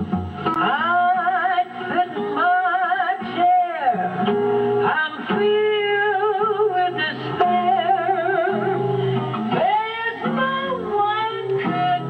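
Jazz vocal with guitar accompaniment: a woman singing a slow melody with wide vibrato over plucked jazz guitar chords and bass notes.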